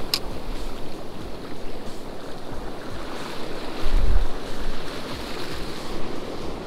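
Ocean surf washing steadily onto a beach, with wind buffeting the microphone in low rumbling gusts, strongest about four seconds in. A short sharp click right at the start.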